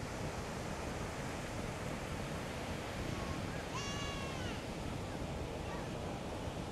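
Surf breaking and washing up a sandy beach, a steady rush of waves. About four seconds in comes a single high, drawn-out cry that falls in pitch at its end.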